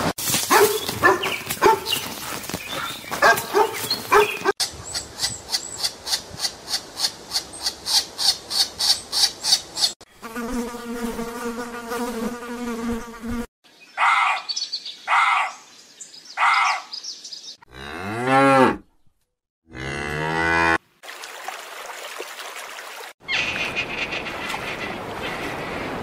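A run of farm-animal calls: chickens clucking, then a fast, even chirping of about four to five pulses a second, then cattle mooing in several long calls. It ends in a steady hiss.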